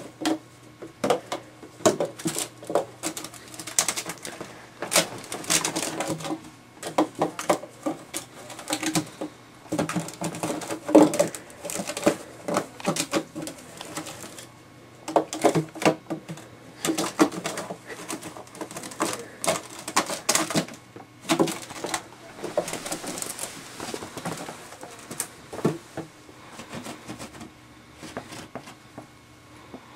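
Empty plastic water bottles crinkling and clattering as a ferret pushes, bites and drags them across the floor: irregular runs of sharp crackles and clicks with short pauses between.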